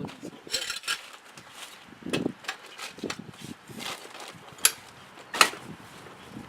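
Irregular knocks and clinks of metal parts being handled during work on a snow plow's mount, with a brief scrape early on and two sharp metallic clicks in the second half.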